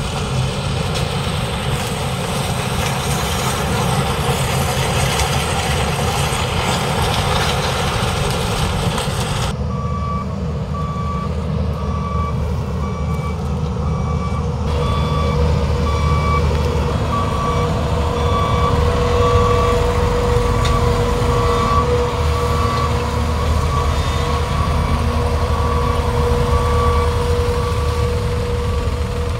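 Case IH sugarcane harvester's diesel engine and cutting gear running with a tractor alongside. A little under ten seconds in, the sound changes abruptly to a reversing alarm beeping steadily over the engines, and a steady whine joins it about five seconds later.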